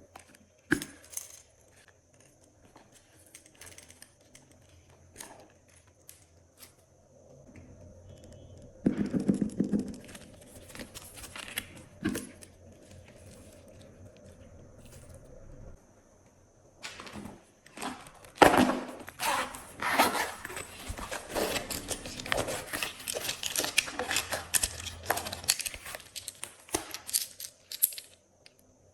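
Glossy slime being squished and mixed with add-ins: sticky clicks and crackles, a short burst about nine seconds in and a dense run of crackling from about seventeen seconds until near the end.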